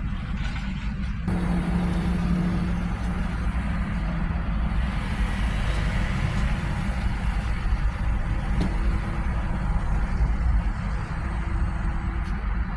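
Road traffic: cars and a tractor-trailer hauling a shipping container moving along a multi-lane road, a steady rumble of engines and tyres. A faint engine tone shows for a couple of seconds early on.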